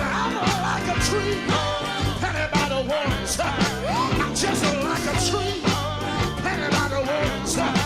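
Gospel quartet music: a lead vocal with sliding pitch over a band with bass and drums playing a steady beat.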